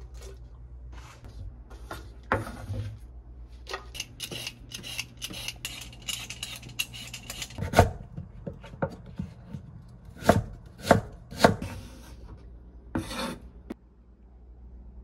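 Chef's knife chopping vegetables on a wooden cutting board: a quick run of light cuts, then several louder single chops through firm raw sweet potato.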